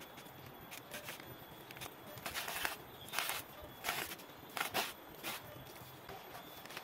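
Rustling and scraping of long leaves and plastic raffia string being handled and pulled tight while tying the leaves to a bamboo batten for thatch: about five short rustles in the middle, a little under a second apart.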